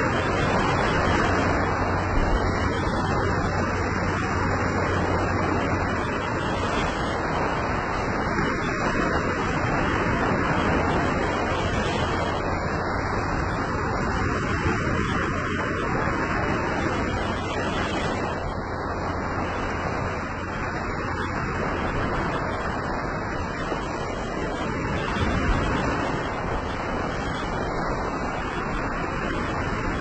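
Small waves breaking and washing up onto a sandy beach: a continuous surf hiss that swells and eases gently.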